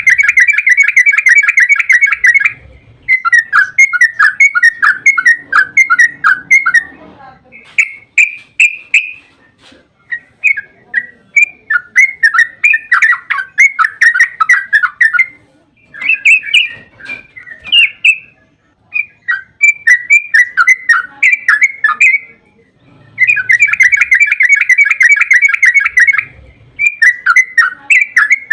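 Yellow-vented bulbul (trucukan) singing long, rapid bubbling 'ropel' phrases: fast trills of notes lasting a few seconds each, broken by short pauses.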